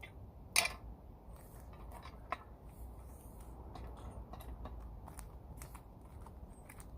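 Scattered light clicks and taps of small hardware being handled, with a sharp click about half a second in and a smaller one a little after two seconds.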